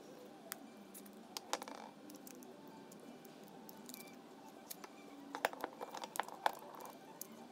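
Clicks and clacks of a folding bicycle lock being handled: its hinged links are shifted in the hands and a mounting bracket piece is fitted to the lock body. A few single clicks early, then a quick run of sharper clicks about five and a half to six and a half seconds in.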